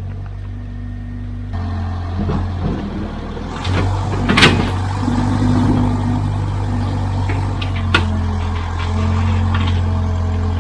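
Hough 30 payloader's engine running steadily under load, its note stepping up twice in the first few seconds. A loud clank about four seconds in and a sharper knock near eight seconds.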